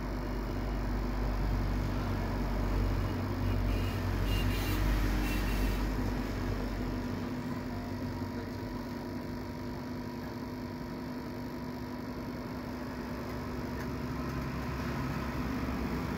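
Hot air rework gun blowing steadily onto the phone board while the power IC's solder is reflowed to seat the chip. A deep rumble under the hiss is heavier in the first half and eases off about seven seconds in.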